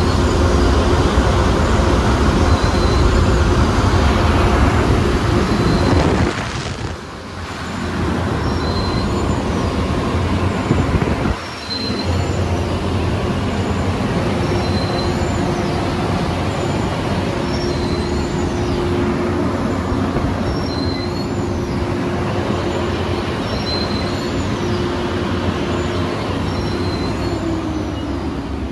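Ryko R7B rollover car wash machine running: a dense steady mechanical rumble and hum with a high squeak repeating about once a second. The noise drops off briefly twice, and near the end a motor's hum falls in pitch as it winds down.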